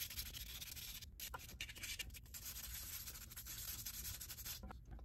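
Sandpaper rubbing by hand on a resin 3D print: a faint, even scratchy hiss that breaks off briefly about a second in and stops just before the end.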